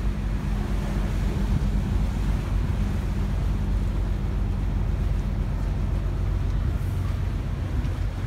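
Vaporetto water bus engine running with a steady low drone, mixed with the wash of water along the hull and wind buffeting the microphone on the open deck.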